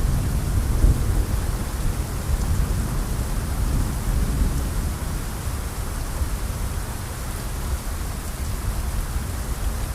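Steady rain with a low thunder rumble that is strongest at the start and slowly dies away.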